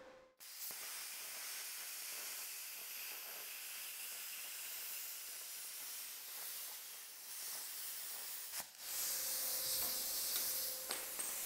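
Harbor Freight Titanium 65 plasma cutter cutting quarter-inch flat steel, a steady hiss for about eight seconds. After a short break near the end, the torch's air keeps hissing with no cut.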